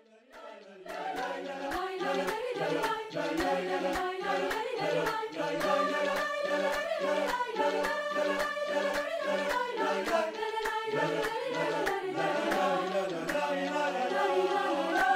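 Mixed choir of sopranos, altos, tenors and basses singing a Turkish folk-song arrangement, entering out of a brief silence and building over the first second or two. Light hand percussion keeps a steady beat of sharp clicks under the voices.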